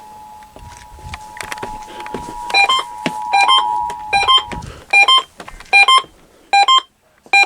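The EAS attention signal, a steady two-tone alert, comes from a radio relaying the emergency alert test and stops about four and a half seconds in. From about two and a half seconds in, an alert receiver beeps an electronic two-note alarm about once every three-quarters of a second, showing it has picked up the test alert.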